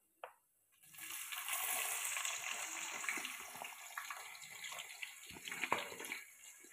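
Sliced onions and green chillies dropped into hot oil and whole spices in an aluminium pressure cooker, setting off a loud sizzle about a second in that slowly dies down. There are a couple of light knocks near the end.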